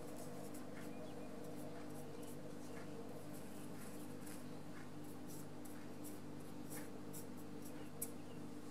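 Paintbrush bristles scrubbing and dabbing in the paint pans of a watercolor palette: a string of short, scratchy ticks, with one slightly louder tap near the end, over a steady low hum.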